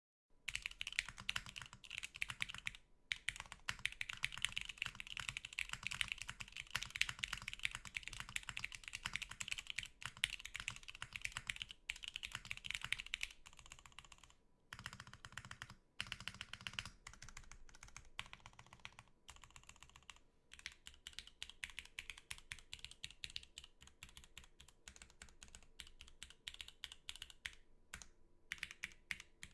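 Typing test on an Etar87 mechanical keyboard built with a polypropylene plate and Gateron switches. Fast, continuous keystrokes start about half a second in and run with a few brief pauses.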